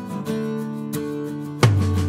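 Background instrumental music with held pitched notes. About one and a half seconds in, a deep bass note and sharp drum-like hits come in and it gets louder.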